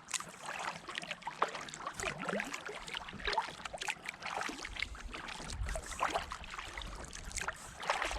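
Kayak being paddled: small irregular splashes and drips from the paddle blades, with water trickling and lapping along the hull.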